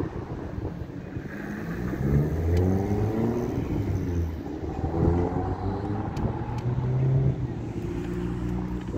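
Heavy diesel truck engine pulling away, its pitch climbing through one gear, dropping at a shift about halfway through and climbing again before it settles, with wind rumbling on the microphone.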